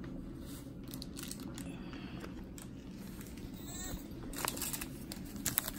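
Steady low room noise with light rustling and scattered soft clicks, and a brief faint rising squeak just before four seconds in.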